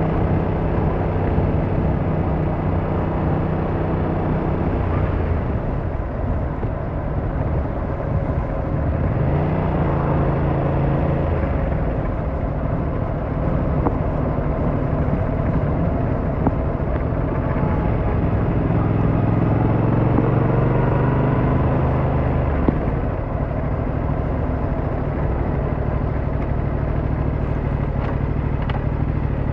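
Yamaha MT-07's 689cc parallel-twin engine running under way, its note dropping and rising several times with the throttle, over wind and road noise.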